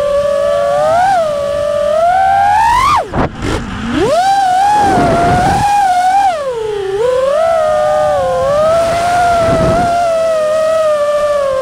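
FPV quadcopter's brushless motors whining, the pitch rising and falling with the throttle; about three seconds in the whine drops away sharply for a moment, then climbs back up.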